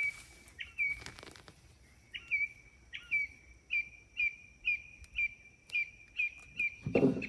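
A songbird calling a run of short whistled notes, each sliding down and holding briefly, repeated about twice a second.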